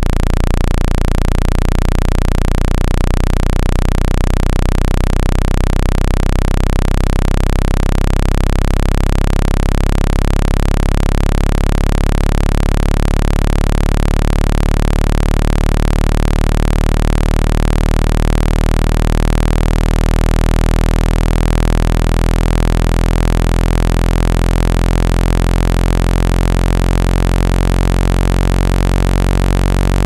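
Water-eject tone: a loud, steady, deep electronic buzz with many overtones above it, played to shake water out of a phone's charging port or speaker.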